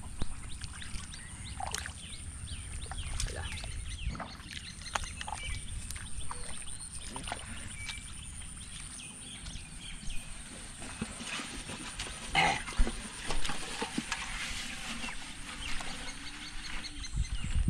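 Rural outdoor background with scattered bird and farmyard animal calls, and splashing and sloshing as feet and hands move through shallow muddy water.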